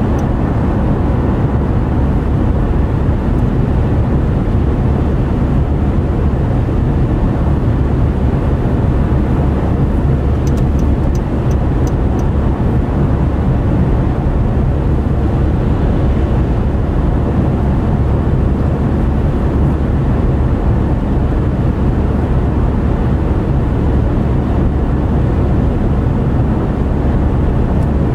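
Steady low drone of a car driving at speed on a motorway, engine and tyre road noise without change. A short run of faint, evenly spaced ticks comes about ten seconds in.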